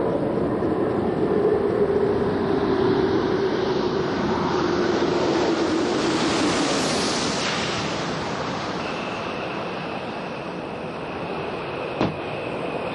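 Space Shuttle orbiter Atlantis gliding in unpowered to land, heard as a rushing of air with a slowly falling tone. The rush swells as the orbiter sweeps past about six seconds in, then eases off. A single sharp click comes near the end.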